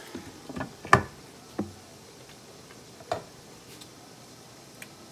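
A few sharp clinks and knocks of a metal utensil and a glass lid against a cooking pot. The loudest comes about a second in and another about three seconds in.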